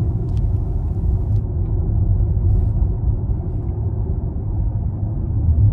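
Steady low rumble of tyre and road noise inside the cabin of an Audi Q4 e-tron, a fully electric car, driving at about 30 mph.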